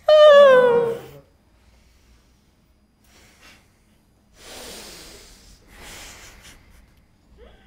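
A loud vocal wail that falls in pitch over about a second, acting out a strong unhappy emotion. A few seconds later come two breathy exhalations like sighs.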